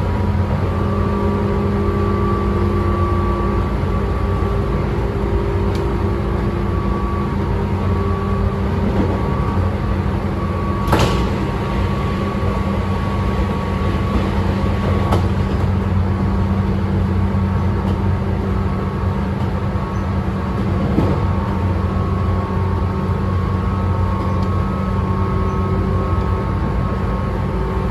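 Running sound inside a Tobu 9000 series electric train car, whose traction gear is thyristor chopper-controlled: a steady low rumble with several constant hum tones from the drive equipment. One sharp click about eleven seconds in, with fainter clicks later.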